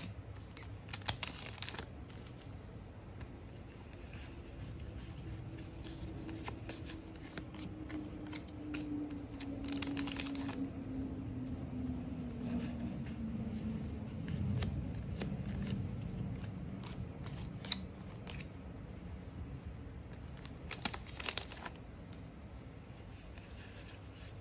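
Trading cards being handled and sorted, with crisp rustles of cards and packs at about 1, 10 and 21 seconds in. Under them a low airplane drone swells in the middle, its pitch sliding slowly down.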